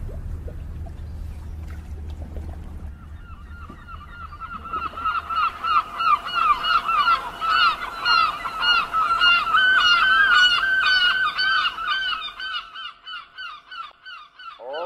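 A flock of birds calling, many short honking calls overlapping. They start about three seconds in, are loudest in the middle, and thin out near the end, over a low rumble. A held musical chord begins right at the end.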